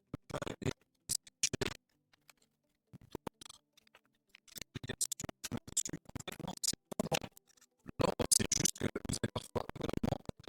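Irregular scratching and clicking, like objects being handled and rubbed, in busy clusters with a lull about two seconds in.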